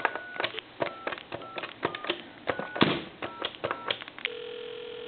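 Touch-tone telephone being dialed: about seven short keypad tones with button clicks, then a steady ringback tone from the line begins near the end as the call to a time-and-temperature number rings through.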